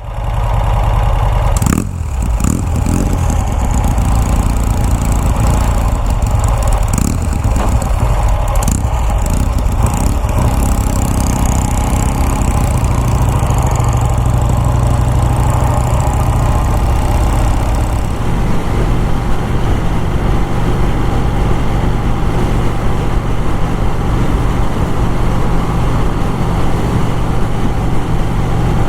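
Motorcycle engine running steadily, with several sharp clicks and knocks in the first ten seconds or so.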